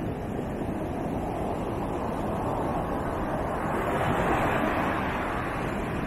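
Surf breaking and washing on the beach, one wave swelling up about halfway through, with wind rumbling on the microphone.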